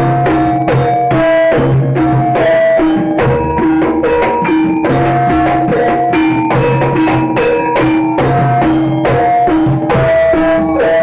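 Jaranan music played by the practising ensemble: drums struck in a dense, steady pattern under held melody notes that step between a few pitches.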